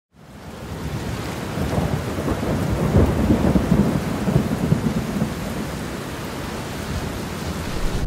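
Thunderstorm sound effect: steady rain with thunder rumbling, fading in at the start and heaviest about three seconds in.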